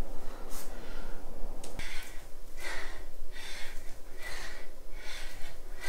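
A woman breathing hard in quick, rhythmic huffs from exertion during a home workout, the huffs starting about two seconds in and coming roughly one and a half times a second.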